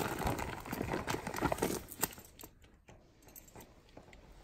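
Clothing and a plastic shopping bag rustling as hands rummage through them, with small clicks and crinkles, busiest in the first half and quieter after about two seconds.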